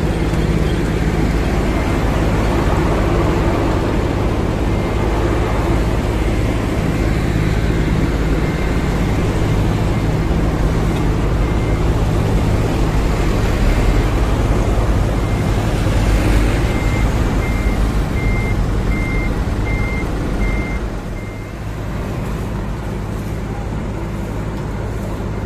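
Heavy diesel trucks and a road-milling machine running at close range, a steady engine hum over traffic noise. From about two-thirds of the way through, a reversing alarm beeps at a steady pace.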